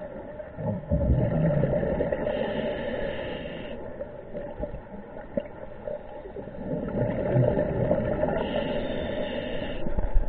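Underwater scuba breathing: a diver's regulator hissing and exhaled bubbles gurgling past the housed camera, in two breaths, about a second in and again around seven seconds in, over a steady underwater murmur.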